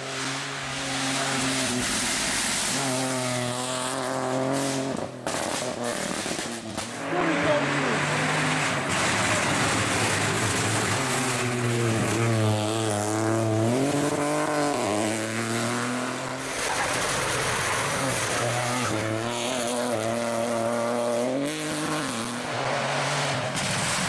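Rally car's turbocharged three-cylinder engine, a Peugeot 208 Rally4, driven hard through corners: the engine note falls and climbs again several times with lifts and gear changes, with a few sharp pops and tyre noise.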